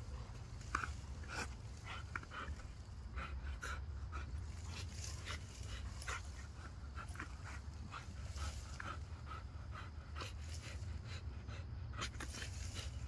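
Pit bull panting, with brief high whines and scattered short clicks over a steady low rumble.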